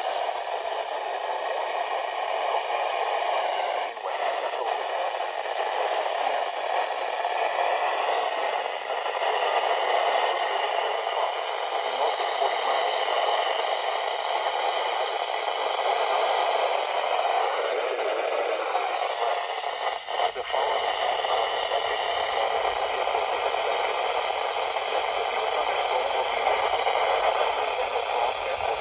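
Steady hiss of radio static from a radio receiver, with brief dips about four and twenty seconds in.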